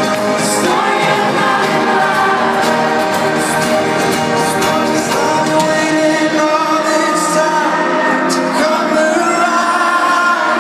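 Live pop band playing with sung vocals, recorded from the audience in a stadium.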